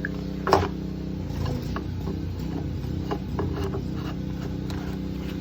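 Small clicks and knocks of the jerry-can lid's aluminum flange and plastic parts being handled and fitted, with one sharper knock about half a second in, over a steady low mechanical hum.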